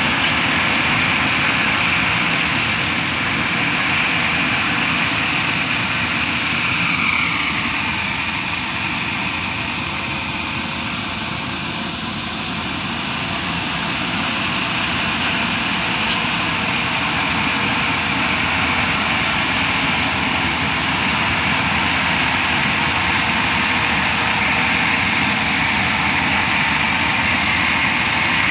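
AW6120 rice combine harvester running while it harvests, a steady engine and machinery drone with a hiss over it. It grows a little quieter about midway and then comes back up.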